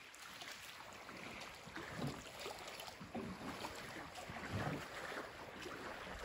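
Small waves lapping irregularly against a small boat's hull, in faint splashes and ticks, with light wind on the microphone.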